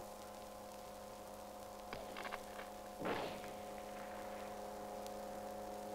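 A steady hum made up of several fixed pitches. There are faint clicks about two seconds in and a brief muffled thump a little after three seconds.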